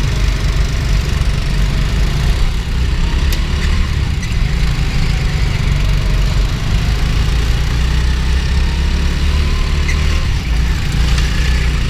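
Go-kart running at speed, heard from onboard as a steady, heavy low rumble of engine and vibration.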